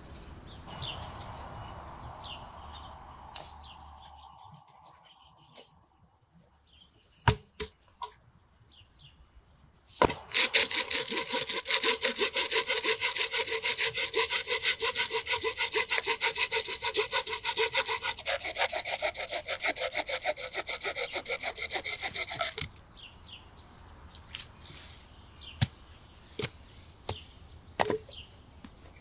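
Hand saw cutting through wood in fast, even strokes for about twelve seconds. It starts about ten seconds in, its tone shifts partway through, and it stops abruptly. Before and after it come scattered light knocks and clicks of handling.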